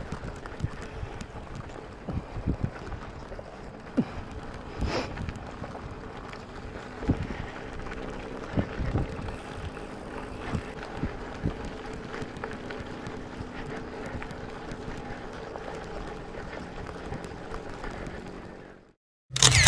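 Gravel bike being ridden over loose stones: a steady rush of wind and tyre noise with frequent sharp knocks and rattles as the bike jolts over rocks. The sound cuts off suddenly near the end.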